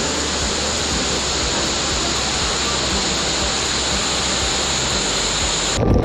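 Waterfall and rocky cascade running full after rain, a steady dense rush of water. Just before the end it changes abruptly to heavy water spattering close up, with many sharp splashes.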